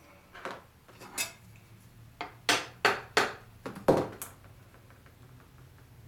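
Hand tools being picked up and set down on a wooden workbench: a quick run of about nine sharp clinks and knocks of metal tools against wood, bunched into the first four and a half seconds.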